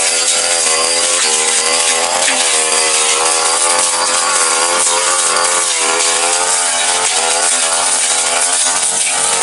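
Backpack brush cutter's petrol engine running at high revs, its pitch repeatedly dipping and recovering as the blade bites into grass and undergrowth.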